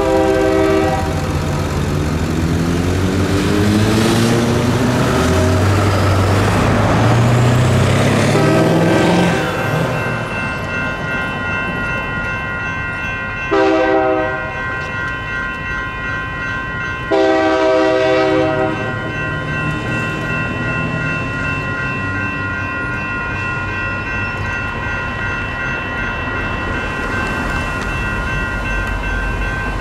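Freight locomotive horn sounding the grade-crossing signal: two long blasts, a short one and a final long one, over the steady ringing of electronic crossing bells. Between the first two blasts the diesel engine of the leading locomotive, a Union Pacific EMD GP40-2, rises in pitch.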